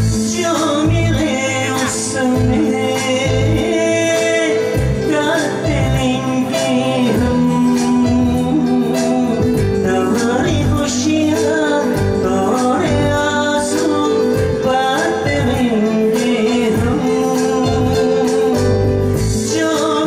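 A man singing a melody live into a microphone over an electronic keyboard accompaniment with a steady beat, amplified through a PA system.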